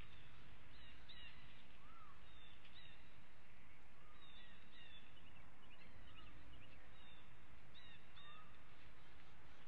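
Short, high bird calls repeating every half second to a second, some sliding down in pitch, over a steady low rumble of background noise.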